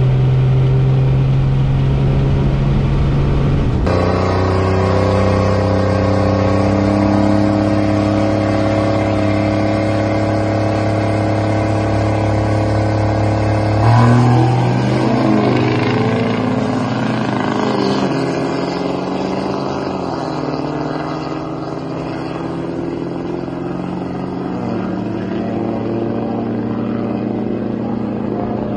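A second-gen Dodge Ram's 12-valve Cummins diesel holds a steady engine note for the first half. About halfway through it launches at full throttle down the drag strip, its note wavering and then falling away as the truck pulls off into the distance.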